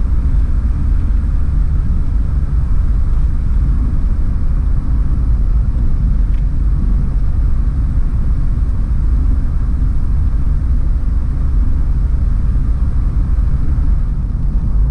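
Campervan driving along a country lane, heard from inside the cab: a steady low rumble of engine and road noise.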